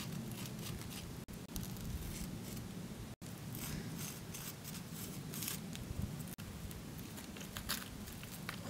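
Irregular scratchy strokes of a drawing being rubbed onto a granite boulder by hand, over a low steady rumble. The sound drops out briefly three times.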